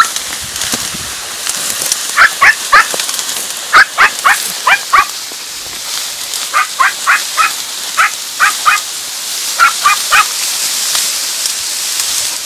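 Podenco Andaluz hounds yelping in quick runs of three to six short, high-pitched barks, about five runs in all, over a steady high hiss. It is the baying the hounds give while trailing a rabbit through the reeds.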